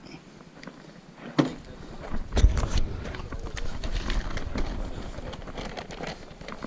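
Footsteps over wood-chip mulch, with rustling and low thuds from a body-worn camera jostled as the wearer walks. A single sharp knock comes about a second and a half in, before the walking starts.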